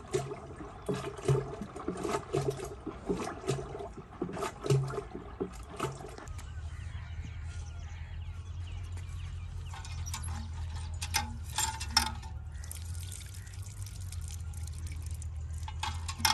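Yogurt sloshing in a pot as it is churned into butter with a hand-pulled wooden churn, in regular strokes about two a second. After about six seconds the sloshing stops, leaving a steady low hum with a few light clicks.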